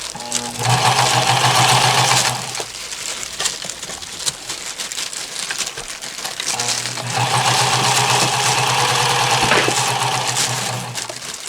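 Janome HD1000 mechanical sewing machine stitching in two runs, one of about two seconds and then one of about four seconds, its motor and needle going at a steady fast rhythm. The machine has not yet been oiled.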